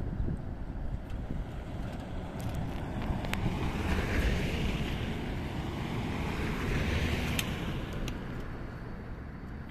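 Four-wheel-drive vehicles driving past on a dirt road: engine rumble and tyre noise on loose gravel, swelling as one vehicle passes about four seconds in and another about seven seconds in, with a few sharp ticks.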